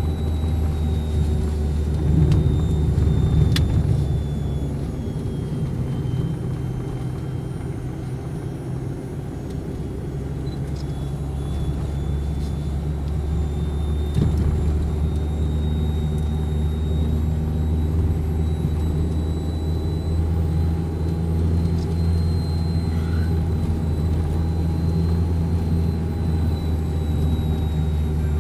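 Car driving along, heard from inside the cabin: a steady low engine and road rumble.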